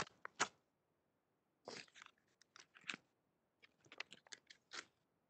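Faint scattered crackles and clicks picked up by a video-call microphone, cut to dead silence between them.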